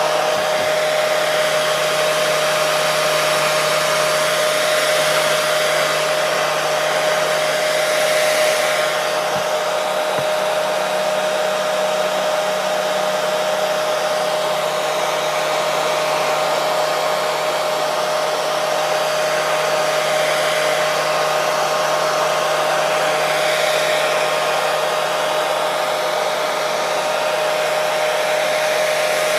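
Hair dryer running continuously: a steady rush of blown air over a constant motor whine. The level holds even throughout.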